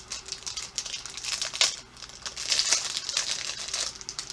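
Plastic packaging of a fidget toy crinkling and rustling as it is handled and opened, in a dense run of irregular crackles.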